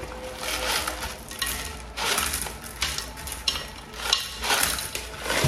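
River stones clattering as they are poured from a plastic pot onto stones in a terracotta pot, in several separate rattling bursts.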